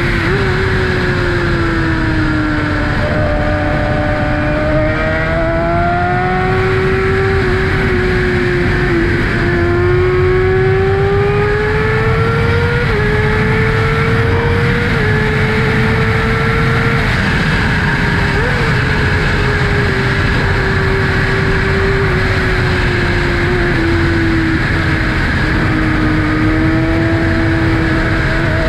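2012 Kawasaki ZX-6R inline-four engine breathing through an M4 Tech 1 aftermarket exhaust, cruising at part throttle. Its pitch drifts slowly up and down with road speed, with a few brief flicks, over a steady rush of wind noise.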